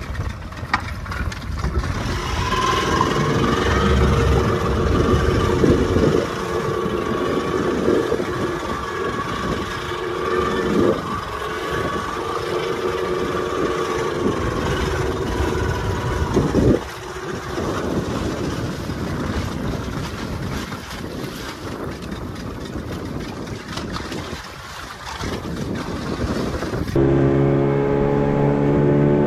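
Boat engine idling unevenly while the boat sits in the water. Near the end it changes abruptly to the engine running steadily under way, a lower, even hum.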